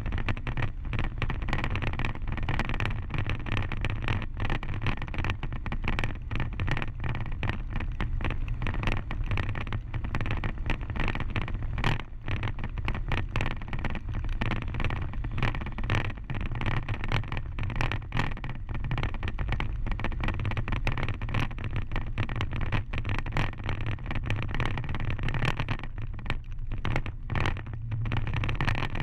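Road noise from travelling over a rough gravel dirt road: a steady low rumble with wind on the microphone, and frequent small knocks and crackles as the mount jolts over stones.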